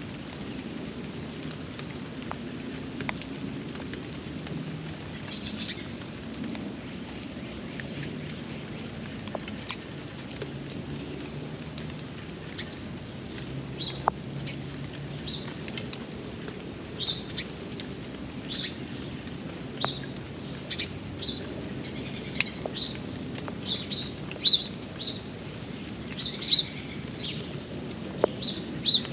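Steady rain falling, with scattered sharp drips. Over it, a bird calls in short high chirps from about halfway through, more and more often toward the end.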